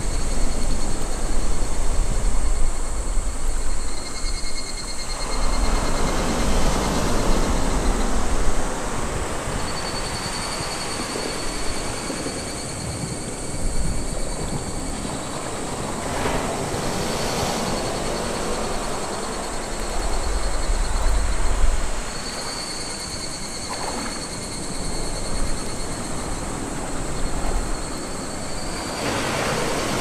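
Small waves breaking and washing up a sandy beach, the surf swelling every few seconds over a low rumble.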